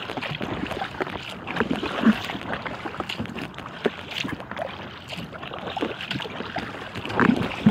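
Water splashing and lapping against the hull of an inflatable kayak, with irregular small knocks and splashes.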